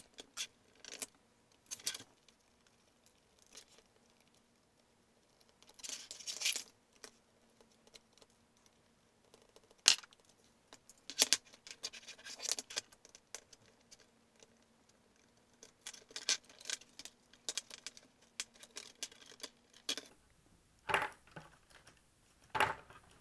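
Scattered clicks, taps and scrapes of a Lenovo ThinkPad Z61t's display assembly being taken apart by hand: the plastic lid and the metal-framed LCD panel knocking and rubbing, with one sharp click about ten seconds in.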